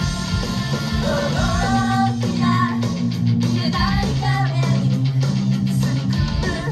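Pop-rock idol song: strummed electric guitar over a steady bass backing, with the idols' young female voices singing the melody from about a second in.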